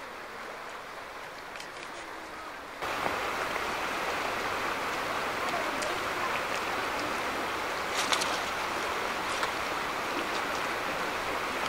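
Rushing of shallow river rapids: a steady wash of water that steps up in level about three seconds in. A few sharp clicks sound about eight seconds in.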